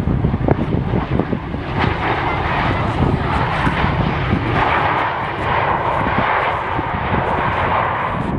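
Jet airliner engines running as an aircraft passes, the engine noise building about two seconds in and holding, with strong wind buffeting the microphone.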